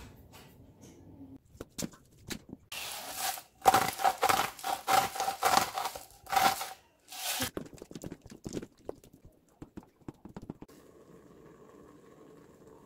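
Handheld salt grinder twisted over a pot, giving a quick run of loud crunching grinds, followed by lighter clicks and taps.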